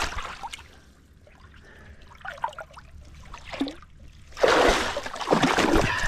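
Creek water splashing and sloshing around a person wading and pulling himself up a bank, fairly quiet at first, then a loud burst of splashing from about four and a half seconds in.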